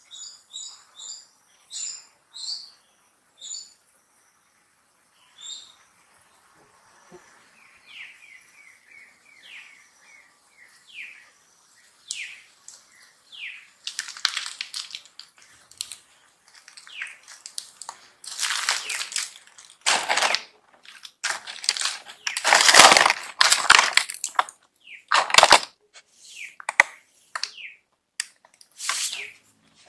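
Baby long-tailed macaque crying: a run of short, falling squeaks, then from about halfway on a string of loud, harsh screams, several in a row. High chirps are heard in the first few seconds.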